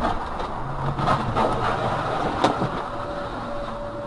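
Steady engine and road noise from a vehicle driving on a highway, with a few sharp knocks, the loudest about two and a half seconds in. A single steady tone starts near the end.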